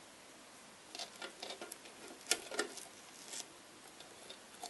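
Fingers handling a plastic toy cottage, pulling the cut-out flames off its roof: a scatter of light taps and clicks between about one and three and a half seconds in, the sharpest a little after two seconds.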